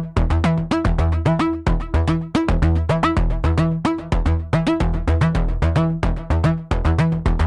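Electronic background music with a fast, even drum-machine beat, synthesizer notes and a heavy bass line.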